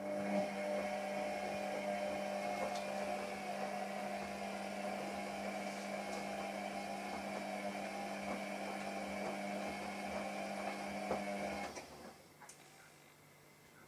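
A kitchen appliance's electric motor runs with a steady hum and whir, starting suddenly and cutting off abruptly about twelve seconds in.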